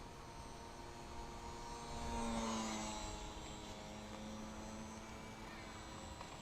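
Electric motor and propeller of a HobbyZone Super Cub S RC plane whining in flight. It grows loudest about two seconds in, with the pitch dropping as the plane passes by, then settles into a steadier drone.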